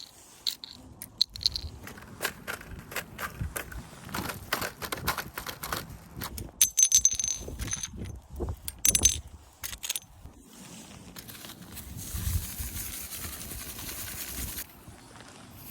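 Litter being picked up and handled: a run of clicks, crunches and scrapes, with bright metallic clinks a little before halfway, then a few seconds of steady rustling hiss.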